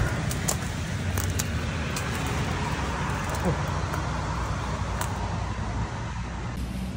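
Steady road traffic from cars circling the roundabout, with a few sharp rustles and snaps as someone forces a way through dense undergrowth and nettles.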